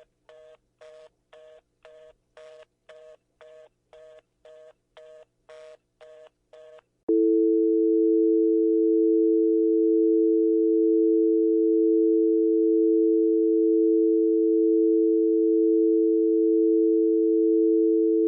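Telephone fast busy (reorder) signal, a two-tone beep repeating about twice a second: the call has failed. About seven seconds in it gives way to a loud, steady telephone dial tone.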